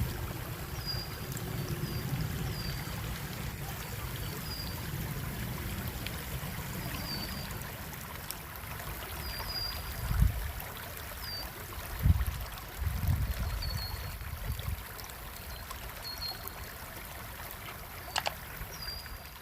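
Outdoor nature ambience: a steady rush of running water with low rumbling swells, and short high chirps about once a second from a small bird.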